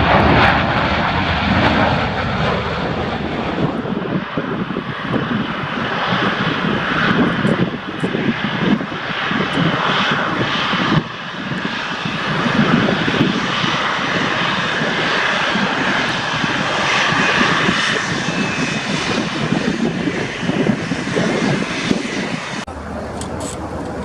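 Jet airliner's engines passing close by with a loud, steady rush, mixed with low fluttering from strong wind on the microphone. The sound changes abruptly about a second before the end.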